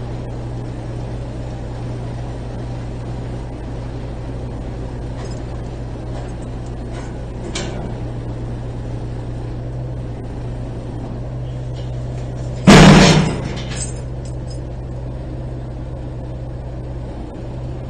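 Military wrecker truck's engine running steadily while its crane lifts a welded steel boat hull, with a few light metal clanks. About three-quarters of the way through, a single loud metallic crash as the hull tips over onto its side, ringing briefly.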